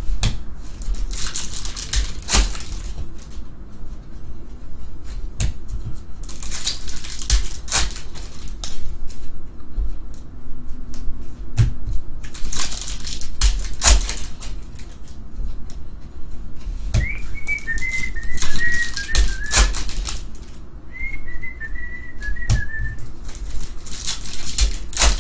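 Trading-card packs being torn open and cards handled: bursts of crackling wrapper and card rustle every few seconds. About two-thirds of the way through, two short wavering whistled phrases, each about two seconds long, sit over the handling.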